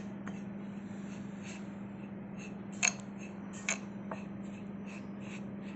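Metal spoon scraping and tapping against a ceramic bowl while stirring a dry, crumbly mix of milk powder and flour, with two sharper clicks near the middle. A steady low hum underneath.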